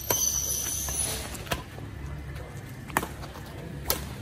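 Badminton rackets striking a shuttlecock in a rally: four sharp hits about one to one and a half seconds apart. The first hit is followed by about a second of hiss, over a steady low hum.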